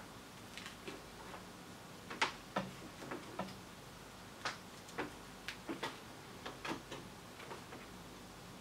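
Small sharp clicks and taps, a dozen or more at irregular intervals, from a soldering iron and small parts being handled.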